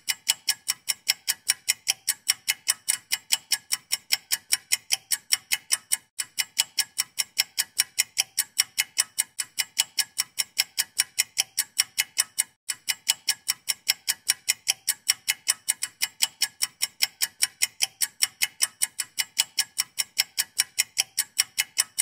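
Clock ticking sound effect laid over sped-up footage, a steady run of sharp ticks at about four a second, marking the time it takes to pitch a dome tent. It breaks off for an instant twice, where the effect loops.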